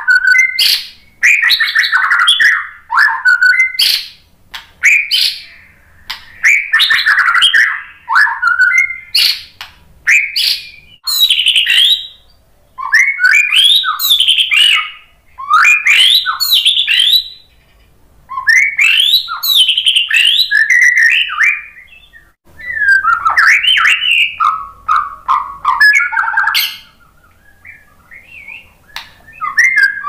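White-rumped shama singing: loud, rapid phrases of varied whistles and chattering notes, each a second or two long with short pauses between, and a longer pause near the end.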